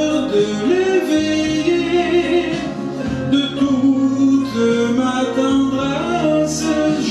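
A man singing a French chanson into a handheld microphone over recorded backing music with guitar.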